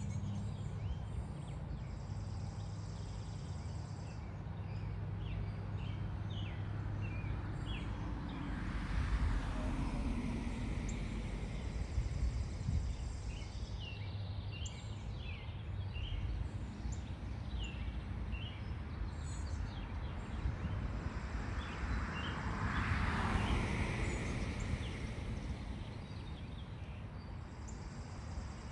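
Outdoor ambience: a steady low rumble with small birds chirping on and off. A broad rushing noise swells and fades twice, about nine and twenty-three seconds in.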